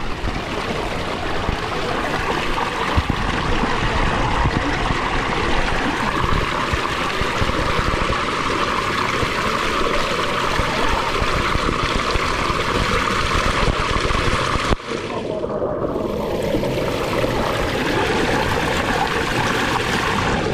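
Steady rushing and splashing of water along a water-park slide, with a brief drop in the noise about fifteen seconds in.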